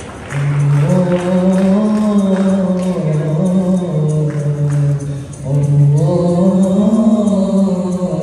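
Unaccompanied male voice singing long, ornamented held notes that step up and down in pitch, with a short break for breath about five seconds in before the next phrase.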